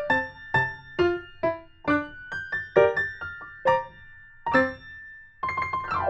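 Light background music carried by an electric piano or keyboard: a bouncy melody of short, plucked-sounding notes, with a brief pause about two-thirds of the way through and a downward sweep near the end.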